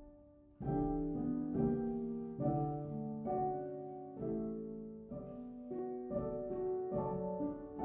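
Background piano music: a slow run of chords and notes, a new one struck about once a second, each ringing and fading. It comes in after a short pause at the start.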